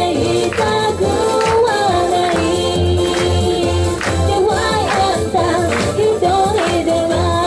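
A woman singing live into a handheld microphone over loud amplified pop backing music with a steady beat.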